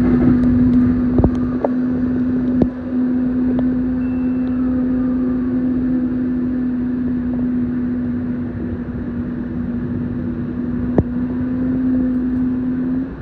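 Siemens P2000 light rail vehicle running out of a station: a steady low hum that holds one pitch, over rumble, with a few sharp clicks, most of them in the first few seconds and one more near the end.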